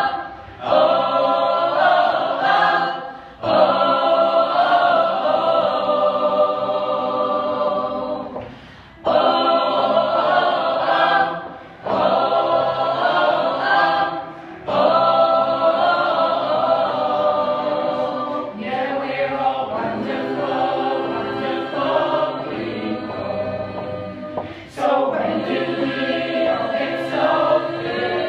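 Choir singing in harmony, in long held phrases broken by short pauses every few seconds.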